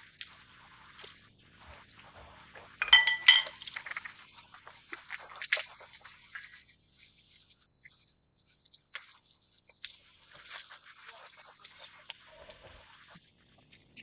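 Light clinks and taps of spoons and dishes during cooking, with a short run of louder, ringing clinks about three seconds in.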